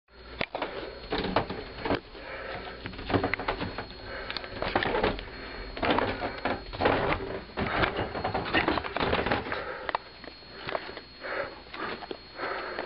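English springer spaniel sniffing close to the microphone, in quick irregular bursts mixed with sharp clicks and rustling.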